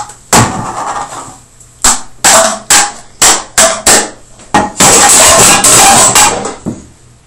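Tins of moist snuff being packed: sharp smacks as the cans are snapped with the wrist and struck on the lid, about eight single smacks, then a loud rapid flurry of them for about a second and a half near the end.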